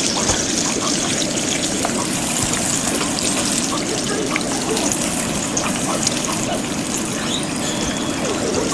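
Food deep-frying in hot oil: a steady sizzle with many small crackles and pops.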